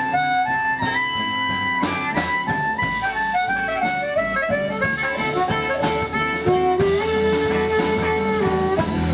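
Live blues band playing an instrumental passage: a harmonica leads with bending notes and one long held note near the end, over electric guitar, upright bass and a drum kit.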